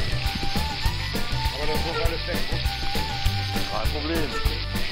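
Marinated fallow-deer venison frying in a large iron pan, giving a steady, dense sizzle, over background country music.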